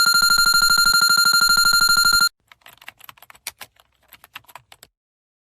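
Fast-pulsing electronic bell ringing, loud and steady for about two seconds before cutting off sharply. It is followed by a couple of seconds of faint, irregular computer-keyboard keystrokes.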